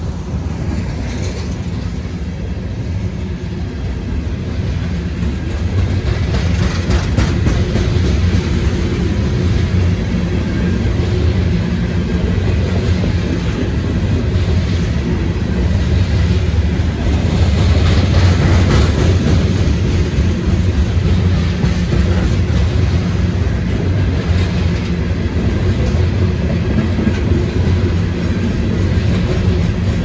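Loaded coal hopper cars of a freight train rolling past: a steady low rumble of steel wheels on rail with wheel clicks, growing louder about six seconds in.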